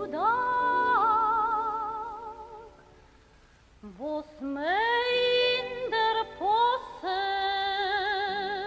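A woman singing long held notes with a wide vibrato, each note sliding up at its start, with a quieter steady accompaniment underneath. The singing breaks off for about a second in the middle, then resumes.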